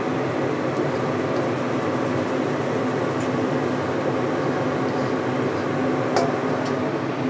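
Steady whirring hum of a fan, likely a kitchen exhaust fan running, with one short click about six seconds in.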